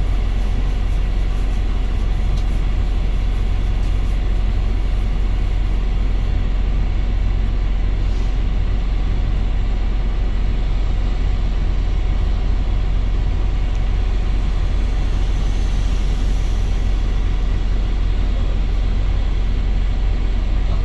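Wright StreetDeck double-decker bus running: a steady low rumble of engine and road noise with a faint, thin steady whine above it.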